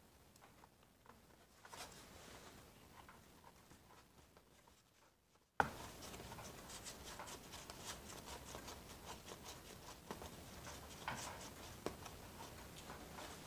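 Faint handling noise from reassembling a chainsaw on a workbench: scattered small clicks and rubbing of parts and tools, with a sleeve brushing near the microphone. A single sharp click comes about five and a half seconds in, and after it the small ticks and rubbing come more often.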